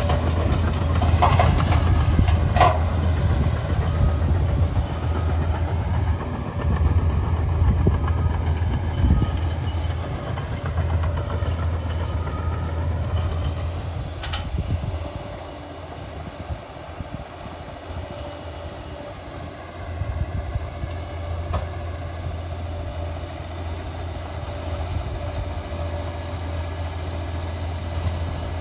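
Liebherr 746 crawler dozer working: heavy diesel engine running steadily, with its steel tracks clattering and squealing and a few sharp metal clanks near the start and midway. The engine eases off for a few seconds around the middle, then picks up again.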